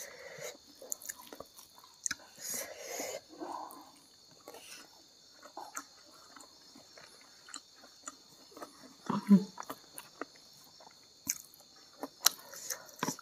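Close-up chewing of a mouthful of rice and side dishes, with irregular soft mouth clicks and smacks, louder around three seconds in and again around nine seconds in.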